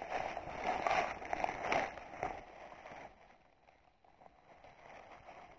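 Rustling of leafy branches and forest undergrowth being pushed aside by hand and brushed through, with a few louder swishes in the first three seconds, then fainter.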